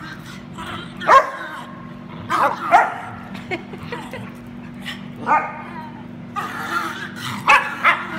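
A Cairn terrier making strange play vocalisations: short calls that bend in pitch. They come once about a second in, twice around two and a half seconds, once past five seconds, and twice close together near the end.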